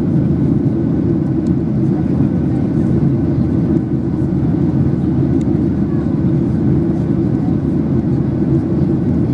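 Steady low cabin noise of a Boeing 737-800 in flight, heard from a window seat inside the cabin: its CFM56 jet engines and the airflow over the fuselage, even and unchanging.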